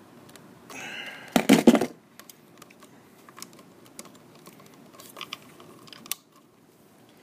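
Small clicks and taps of a wire being bent into a loop and fitted to a light switch's screw terminal: a loud cluster of sharp clicks about a second and a half in, then scattered light ticks.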